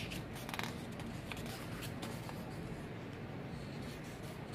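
A page of a picture book being turned: a short paper rustle near the start, then a few faint paper ticks and rustles as the page settles.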